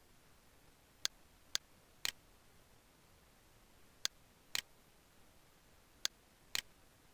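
Sharp, short clicks, mostly in pairs about half a second apart, coming roughly every two seconds, over faint hiss.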